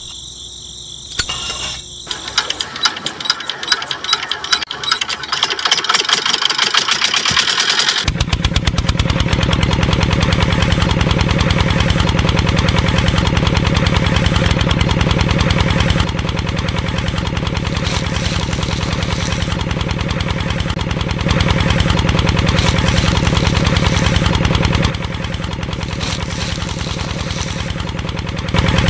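Small single-cylinder stationary diesel engine being hand-cranked, giving irregular knocks that grow faster, then catching about eight seconds in and running steadily with a rapid knocking beat.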